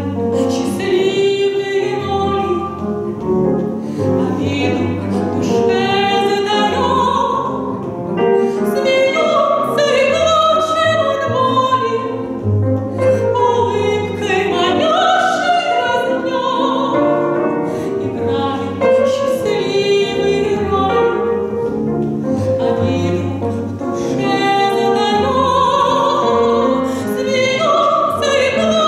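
Soprano singing an operetta aria with a wide vibrato, accompanied by a Steinway grand piano and a double bass.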